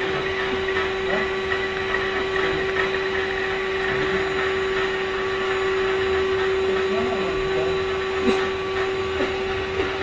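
Vacuum cleaner running steadily with a constant motor whine, and a couple of light knocks near the end.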